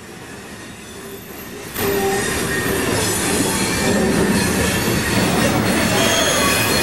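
Loud rumbling, grinding noise with thin, high squealing tones over it. It builds slowly, then swells up sharply about two seconds in and holds steady.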